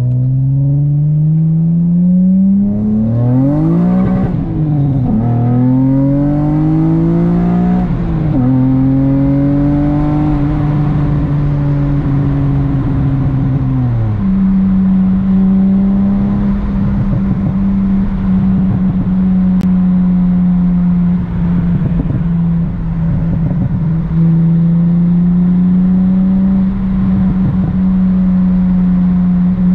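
Acura TL V6 engine heard from inside the car on a test drive: it rises in pitch as the car accelerates, dropping back twice as it shifts up, then holds a steady drone while cruising.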